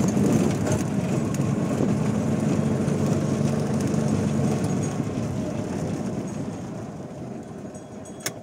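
CNG auto-rickshaw engine running, heard from inside the open cabin, with a steady low drone. The engine note drops away a little past halfway and the noise fades as the vehicle slows, with one sharp click near the end.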